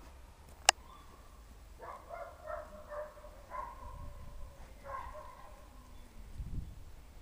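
A single sharp click, then a run of short, high, steady-pitched animal calls for a few seconds, and a low rumble near the end.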